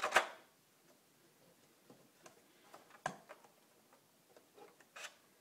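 Small clicks and taps of pliers and a wire jumper against the terminal block and sheet-metal case of a lathe control box. A sharp click comes at the start, another about three seconds in and one near the end, with fainter ticks between.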